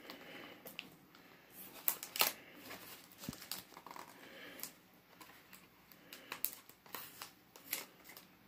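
Fingers picking at and peeling the plastic packaging on a sealed DVD case: scattered faint crinkles, ticks and small tearing sounds.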